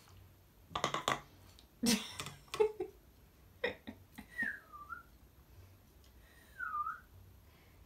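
A person whistling two short notes, each dipping in pitch and rising again, about four and about six and a half seconds in. A few sharp knocks and rustles come before them.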